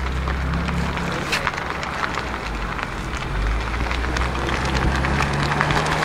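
Stage-2 tuned BMW M5 F90's twin-turbo V8 running at low revs as the car rolls off slowly, with light crackling and popping from the exhaust.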